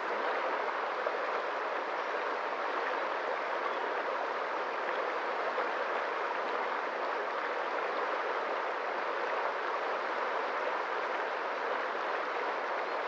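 Water flowing in a stream, a steady, even rush with no breaks.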